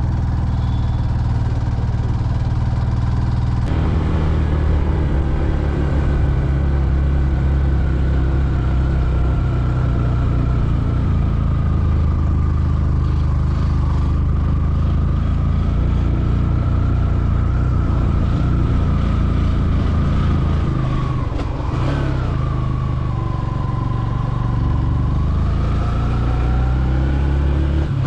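Motorcycle engine running under load while climbing a steep forest road with two riders aboard. The engine note holds steady, dips briefly about two-thirds of the way through, then rises again near the end.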